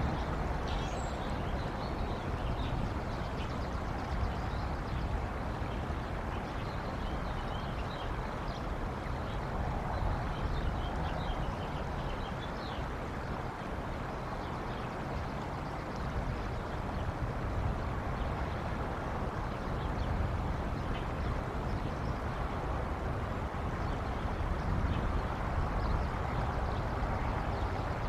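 Steady low wind rumble on an outdoor microphone, with small birds chirping faintly now and then in the background.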